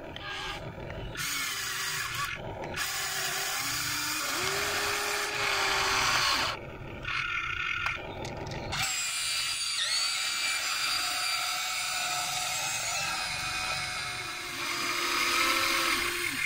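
Small electric motors of a Huina radio-controlled excavator whining as the boom, arm and bucket move, the pitch gliding up and down as the motors start, stop and change speed several times.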